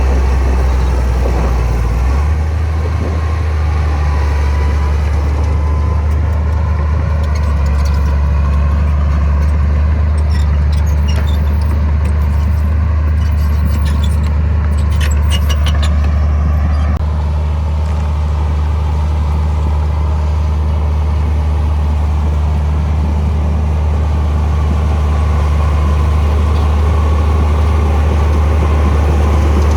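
Heavy diesel earthmoving machinery running steadily under load, a deep drone whose note shifts about two seconds in and again past the middle. A run of light metallic clinks comes in the middle.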